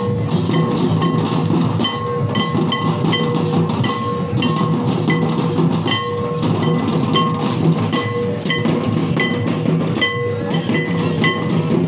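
Santali traditional dance music: a steady drumbeat with short, repeated ringing tones over it.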